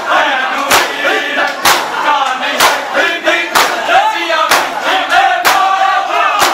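Crowd of Shia mourners doing matam: bare-chested men slapping their chests in unison about once a second, seven strokes, while many men's voices chant and shout over a dense crowd din.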